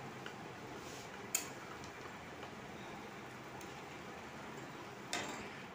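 Curry simmering in a pan on a gas stove, a faint steady hiss, with a spatula clicking once against the pan about a second and a half in and scraping briefly near the end.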